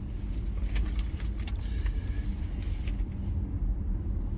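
Steady low rumble of a running vehicle, with a few light clicks and taps in the first second and a half.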